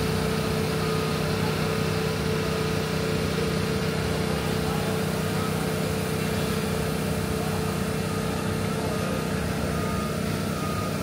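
A machine running steadily with a constant low hum and a fixed tone over it, not changing in speed.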